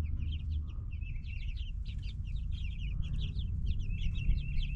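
A flock of young meat chickens peeping continuously, many short high chirps overlapping one another, over a steady low rumble.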